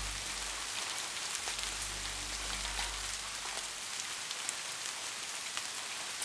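Steady rain falling, an even hiss with scattered drop ticks. Faint low notes of slowed-down orchestral music die away a little past halfway, leaving only the rain.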